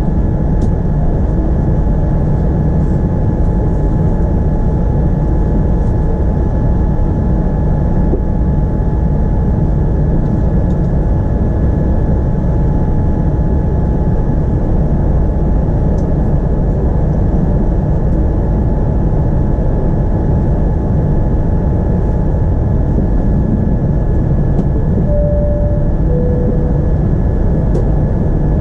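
Steady cabin noise inside a Boeing 787-9 airliner: a deep, even rush of engines and airflow with a faint constant whine. Near the end a short two-note falling cabin chime sounds.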